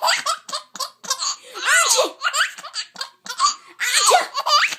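A baby laughing in short, repeated bursts of belly laughs, with a rising squeal near the end.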